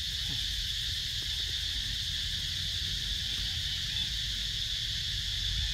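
A steady, high-pitched chorus of insects, crickets or cicadas, droning without a break, with a low rumble underneath.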